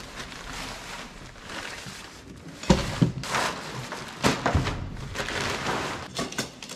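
Rustling handling noise of tent gear being set up on an aluminium jon boat, with a few sharp thunks and knocks against the hull in the middle.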